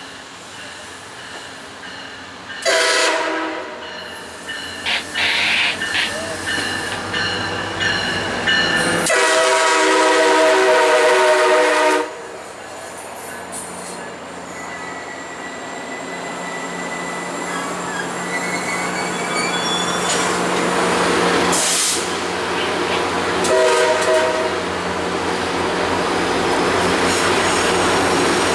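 MARC commuter train's locomotive horn sounding several times: a blast a few seconds in with short toots after it, a longer blast around the ten-second mark, and a short one near the end. Between them the train's wheels and rail noise build as it passes, with a thin high wheel squeal.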